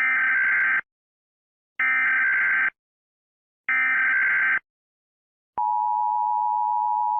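Emergency Alert System tones: three harsh, buzzing SAME header data bursts, each just under a second long and a second apart, followed about five and a half seconds in by the steady two-tone EAS attention signal.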